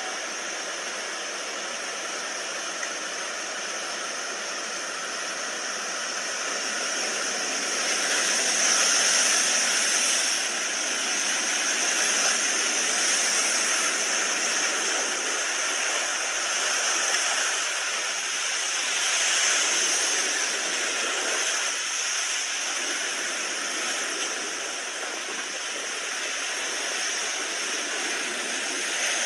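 Rushing, surging water as a steady roar without pitch, swelling louder twice.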